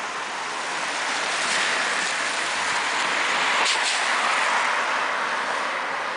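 A pack of road-racing cyclists passing close by: a rushing of tyres and air that swells to a peak a little past halfway, then eases off, with a couple of sharp clicks near the peak.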